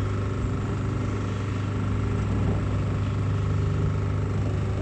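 Motor boat's engine running steadily, a low even drone heard from on board.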